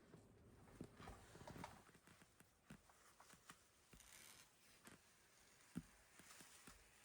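Near silence broken by faint, irregular small clicks and knocks, a few close together about a second in and one sharper knock near the six-second mark, with two brief soft hisses between.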